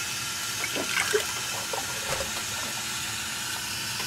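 Thick barbecue sauce pouring from a stainless steel bowl through a plastic funnel into a glass mason jar, filling it, with a few light knocks of the bowl and funnel in the first two seconds or so.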